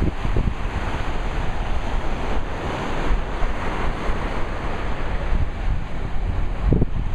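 Small Gulf of Mexico waves breaking and washing up a sandy beach, a steady surf wash, with wind buffeting the microphone in low rumbling gusts just after the start and again near the end.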